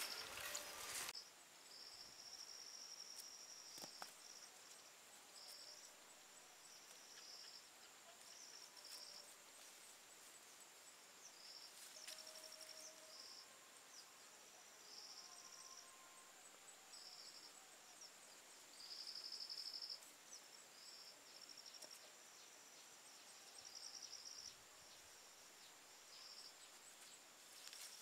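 Insects trilling in many short, high-pitched bouts over a faint steady high whine, with a brief burst of rustling in the first second.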